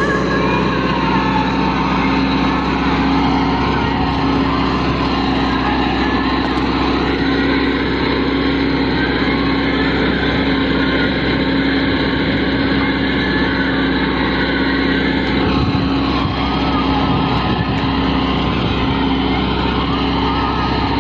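Tractor diesel engine running steadily under load, with a slight change in its sound about fifteen seconds in.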